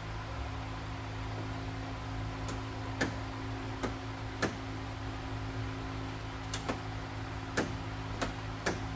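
Clear plastic vapor barrier crackling in scattered sharp clicks, about nine of them, as it is pressed by hand back onto the door's adhesive, over a steady low hum.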